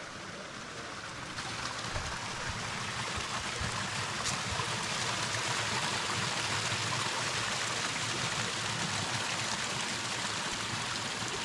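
Rushing stream water, a steady wash of noise that grows louder about a second and a half in.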